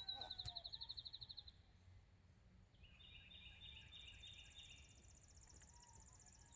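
Faint songbirds singing: a fast high trill that fades out about a second and a half in, then a run of repeated chirps, and a higher, very fast trill starting about four seconds in.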